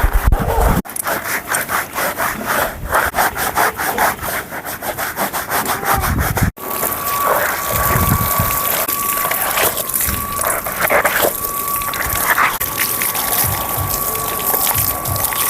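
Rapid, rhythmic scraping strokes of a horse-grooming tool being worked over the horse. About six and a half seconds in, the sound cuts to a denser rubbing and scraping with a faint steady high tone beneath it.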